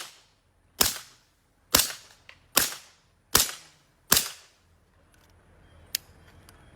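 Suppressed .40-caliber short-barreled rifle built on an Armory Dynamics AD-9 receiver, fired through a SilencerCo Omega 45K silencer. Six semi-automatic shots come at an even pace, a little under a second apart, followed by a faint sharp click near the end.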